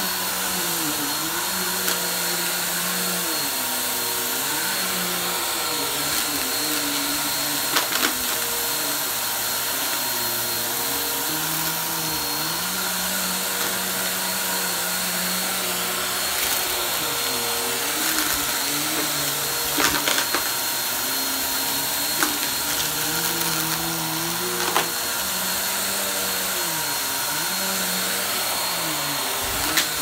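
Bagless upright vacuum cleaner running on carpet: a steady motor whine whose lower hum dips and rises in pitch every few seconds as the head is pushed back and forth. A few sharp clicks come through over it.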